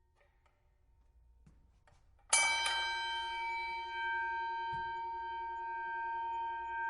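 Boxing ring bell struck once, about two seconds in, after a few faint clicks, then left ringing out with a long, slowly fading tone.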